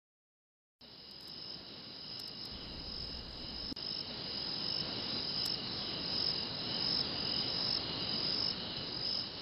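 Crickets chirping in a dense, steady chorus as a night-time ambience, fading in about a second in and slowly growing louder.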